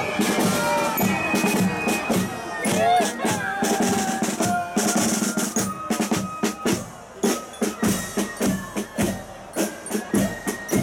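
A carnival marching corps of snare drums and fifes playing a march, the drum strokes coming in a steady rhythm with a few held fife notes over them. Crowd shouting and cheering is heard in the first few seconds.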